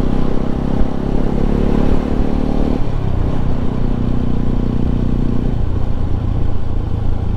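Bajaj Pulsar RS 200's single-cylinder engine through its stock exhaust, running steadily on the move. Its note steps down about three seconds in and drops again near six seconds.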